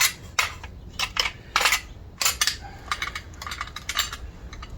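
The Jetta's metal car jack clinking and rattling as it is handled and set in place: a quick, irregular run of sharp metallic clinks and knocks.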